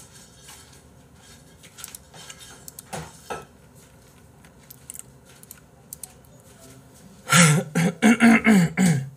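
A few faint, scattered clinks of dishes and cutlery being handled, then about two seconds of a person's voice starting about seven seconds in.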